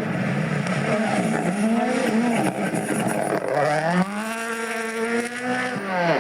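Rally car engine revving hard, its note rising and falling with throttle and gear changes. Near the end it pulls up to a steady high note for a couple of seconds before dropping away.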